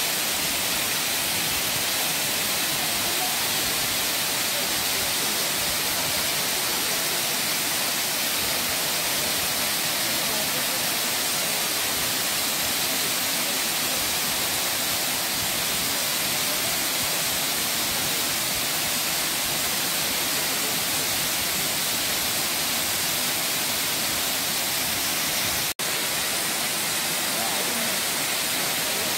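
Waterfall cascading down a broad rock face: a steady, even rush of falling water, cut off for an instant near the end.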